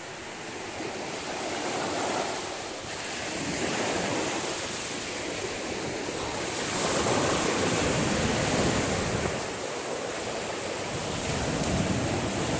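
Small ocean waves breaking and washing up over sand at the shoreline, swelling and easing every few seconds. Wind buffets the microphone, adding a low rumble in the second half.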